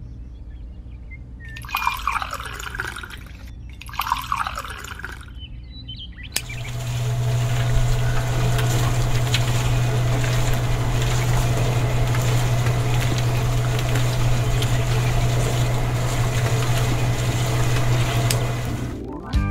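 Water poured twice in short splashes into a miniature concrete-mixer drum made from a can. Then the mixer's small electric motor runs with a steady hum, turning the drum with the wet mix churning inside, and stops near the end.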